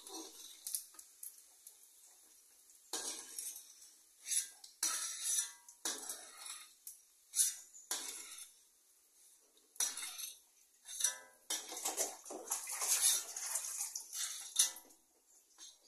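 Metal spatula scraping and clinking against a wok, scooping out fried anchovies: a run of irregular scrapes, some short and some about a second long.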